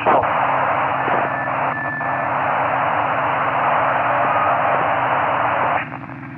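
Steady FM radio hiss from the AO-92 (Fox-1D) amateur satellite's 145 MHz downlink, heard on the receiver between stations' transmissions, with a faint short whistle about a second in. The hiss drops away suddenly near the end, leaving a low hum.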